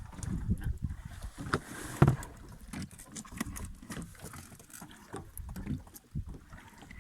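Irregular knocks and thumps aboard a small fishing boat, with one sharp, loud knock about two seconds in.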